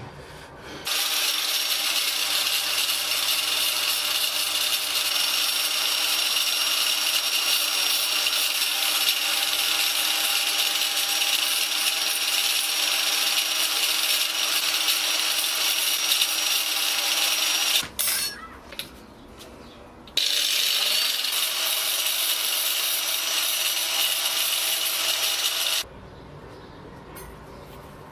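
Electric grinder running with the broken end of a steel clock mainspring held against its wheel, grinding the spring end: a steady motor whine under a hissing grind. It runs for about 17 s, stops for about two seconds, then starts again with a short rising whine and runs about 5 s more before cutting off.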